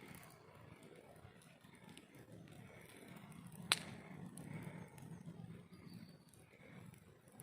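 Campfire burning quietly, with one sharp pop of burning wood about halfway through.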